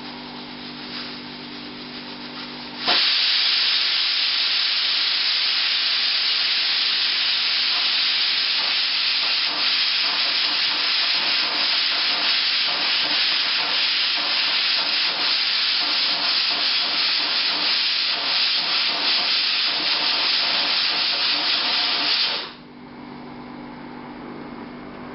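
Stovetop pressure cooker's weighted vent valve lifting and releasing steam in a loud, steady hiss that starts suddenly about three seconds in and cuts off near the end: the cooker has reached full pressure and is venting the excess. Before and after the hiss there is a quieter low steady hum.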